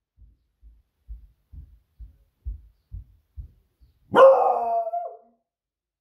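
Beagle giving one loud, drawn-out alert bark about four seconds in, lasting about a second and falling in pitch at the end. Before it comes a run of soft low thumps, about two a second.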